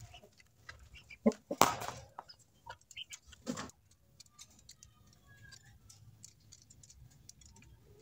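Irregular light clicks and knocks from handling a quail at a wire cage, a few louder ones early on, with faint short bird chirps around the middle.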